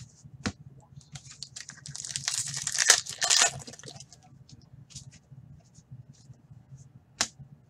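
Foil trading-card pack being torn open: a crinkly rip that builds over about two seconds and is loudest around the three-second mark. Cards are handled around it with a few short clicks.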